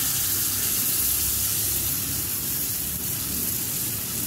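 Sauce sizzling with a steady hiss as it is poured from a pouch into a hot frying pan of lamb on a portable gas stove.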